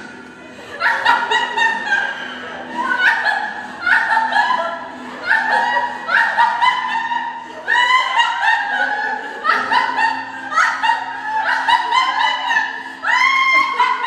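Two women laughing hard and theatrically, a string of loud, high-pitched shrieks of laughter coming roughly once a second.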